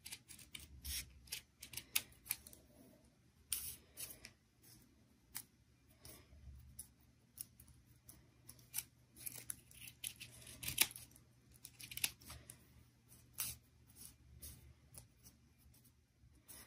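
Scissors cutting crepe paper: a string of short, irregular snips as a folded paper leaf is trimmed thinner.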